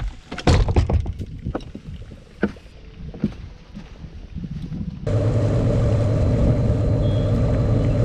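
A few sharp knocks and thumps, as of things bumped on an aluminium bass boat. About five seconds in, a loud steady noise starts abruptly: the boat running under outboard power, with a low engine hum and rushing water and wind.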